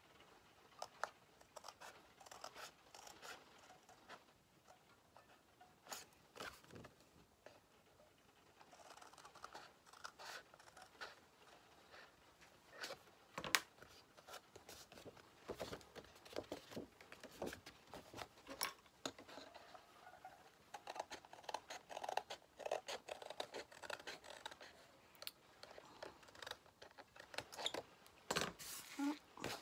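Scissors cutting through paper in a series of short, irregular snips, with faint paper rustling.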